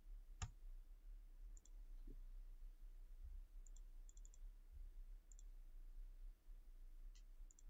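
Faint computer keyboard and mouse clicks, mostly in quick pairs, with one sharper click about half a second in.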